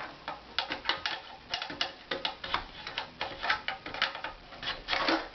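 Irregular clicking and clattering of metal parts as the rear converter of a Hoover Convertible 589 upright vacuum is handled, with the motor off.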